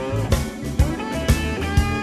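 Background music: an electric guitar rock track with a steady drum beat.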